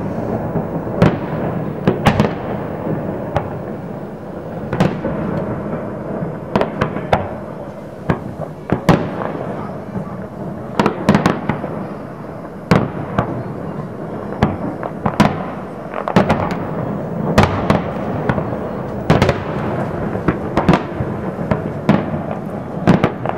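Aerial firework shells bursting: a long run of sharp bangs at irregular intervals, sometimes two or three in quick succession, over a continuous din.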